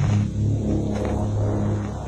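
Background music of low held notes that change every half second or so.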